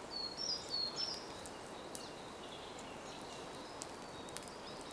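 Campfire crackling, with scattered sharp pops over a steady hiss. A small bird gives a few short, high whistled notes in the first second.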